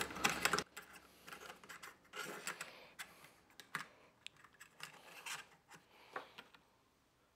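Faint, scattered metal clicks and scrapes as a drain lock bar is worked into the flange of a stainless steel commercial sink drain.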